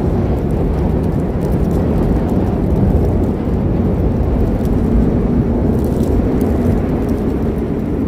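A loud, steady low rumbling noise with a few faint ticks above it.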